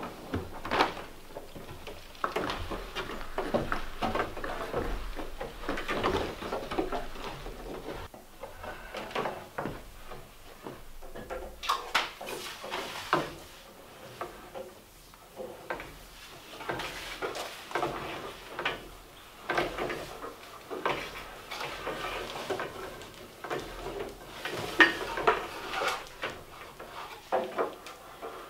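Irregular knocks, scrapes and rustles of electrical cable being pulled off a coil and dragged over bare wooden floor joists, mixed with footsteps on the timber.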